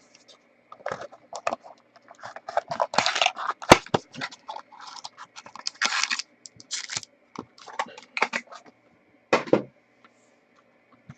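Trading cards and their packaging being handled: irregular scraping and rustling as cards slide against each other, with one sharp click about four seconds in.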